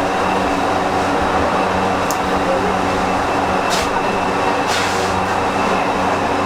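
Steady background din of a busy market shop, with a constant low hum from fans or machinery and a few brief swishes about two, four and five seconds in.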